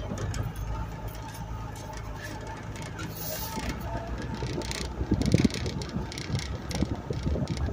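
Off-road vehicle's engine running steadily as it drives a bumpy dirt track, with repeated knocks and rattles from the bumps, the loudest cluster a little past halfway.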